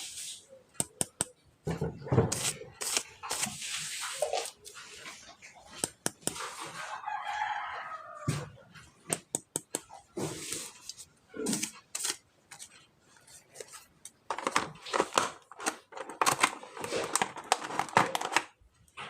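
A rooster crows once, about six seconds in, over repeated clicking and crackling from plastic toy packaging being handled and torn open.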